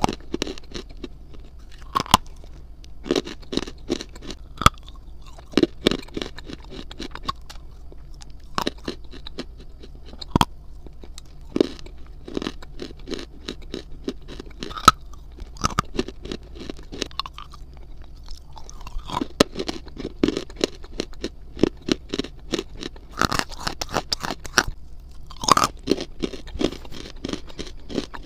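Dry edible clay being chewed close to a small microphone: an irregular run of gritty crunches and crisp cracks, several a second, with a few sharper, louder cracks scattered through.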